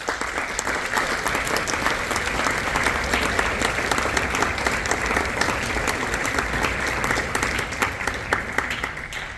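Concert-hall audience applauding steadily, the clapping thinning out near the end.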